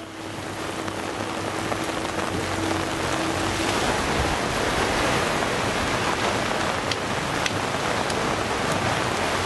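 Steady rain falling on hard surfaces, swelling up over the first second or two and then holding even.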